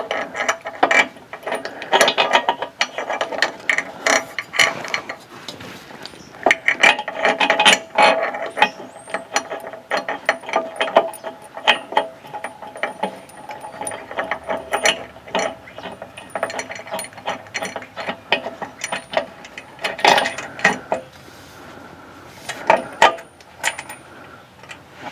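Hand ratchet wrench clicking in runs with short pauses as a large bolt is turned into a threaded hole in a running-board bracket.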